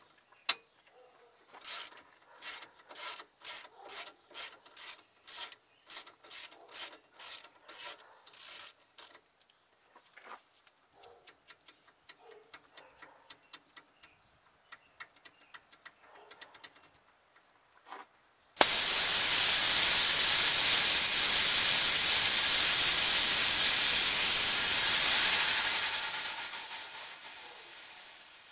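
A ratchet wrench clicking in steady strokes, about two a second, as it loosens a fitting on a car's AC line. Then a sudden pop and a loud rushing hiss of pressurised AC refrigerant blowing out of the opened system, holding for about seven seconds before fading.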